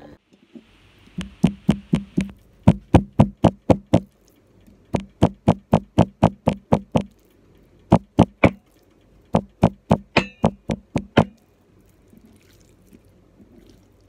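Back of a cleaver pounding thin pork slices on a cutting board to tenderize them: quick runs of sharp knocks, about five a second, broken by short pauses, then stopping.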